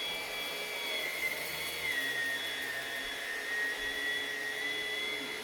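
Vax Pace Pet cordless stick vacuum cleaner running with a steady motor whine. The whine's pitch sinks slightly about two seconds in, then holds steady.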